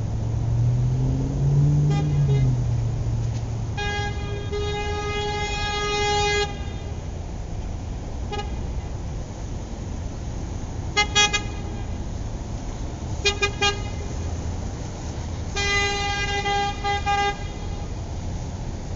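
Car horn honking in a series: a long honk, a short toot, two quick bursts of three short toots, and another long, slightly broken honk near the end. A steady street background noise lies under it, with a low rumble rising and falling in the first few seconds.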